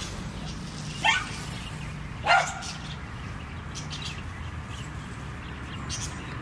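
A dog barking twice, about a second apart, each bark short and rising in pitch, over a steady low background hum.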